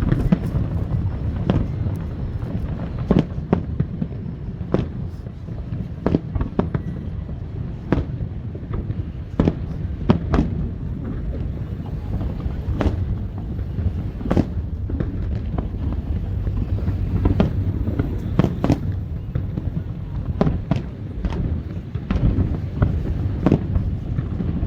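Aerial fireworks display: shells bursting in an irregular stream of sharp bangs, roughly one or two a second, over a constant low rumble.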